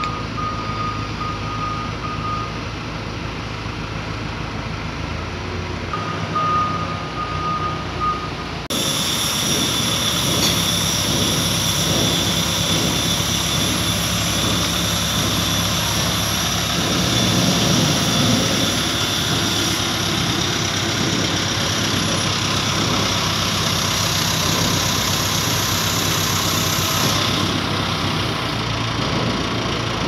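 Diesel engine of a backhoe loader running steadily as it moves and carries a steel column on its front forks; about nine seconds in it suddenly becomes louder and fuller as the machine is close by.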